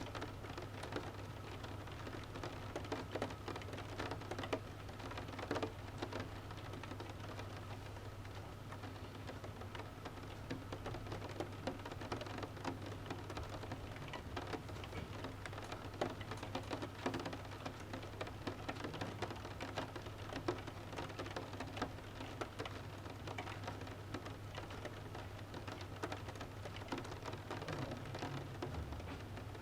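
Rain pattering on a window pane, a steady wash of rain with many small, sharp drop ticks on the glass, over a steady low hum.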